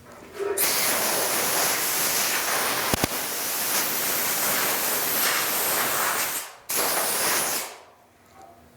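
Compressed-air blow gun hissing in one long blast, which stops briefly about six and a half seconds in and gives way to a second short blast, blowing sanding dust off the sanded parts. A sharp click about three seconds in.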